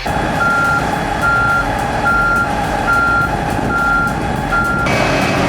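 A heavy machine's reversing alarm beeping, six even beeps about one a second, over engine noise; the beeps stop just before the end.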